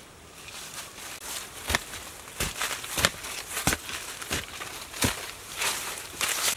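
A wooden digging stick striking and prying into a hard, dry termite mound, about six sharp knocks at uneven intervals, with clods of earth cracking off and crumbling down between them.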